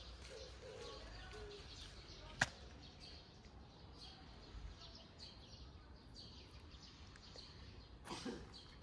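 Faint outdoor ambience with light bird chirps, and a single sharp click about two and a half seconds in.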